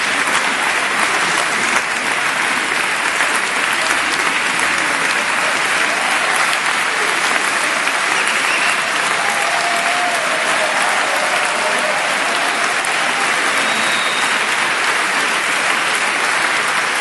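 Long, steady applause from a crowd, with the choir on stage clapping along.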